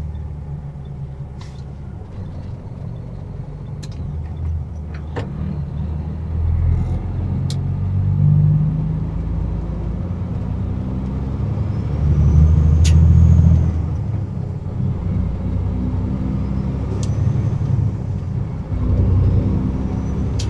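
Semi truck's diesel engine running while driving, a steady low rumble whose note shifts up and down and swells about twelve seconds in. A few sharp clicks and knocks sound here and there.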